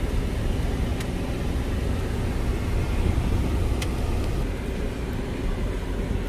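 Steady road and engine rumble inside the cabin of a moving car, with two faint clicks.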